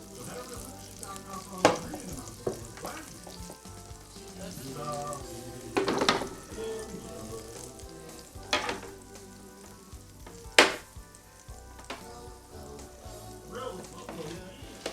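Tomahawk ribeye steak sizzling as it sears in a hot pan, with several sharp knocks of cookware at intervals, the loudest about two-thirds of the way in.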